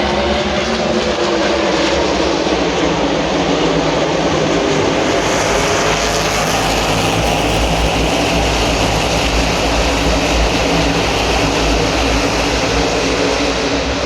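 Loud, continuous noise of a field of NASCAR Cup cars' V8 engines running on the track, several engine notes at once, growing brighter about five seconds in and easing back near the end.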